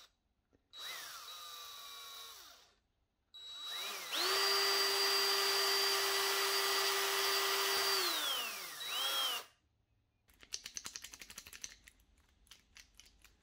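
Cordless drill with a small bit boring joint-pin holes in a poplar wood lure segment: a short run, then a longer run held at steady speed for about four seconds before it spins down. Near the end come a string of light clicks as the jointed wooden lure and its stainless wire hardware are handled.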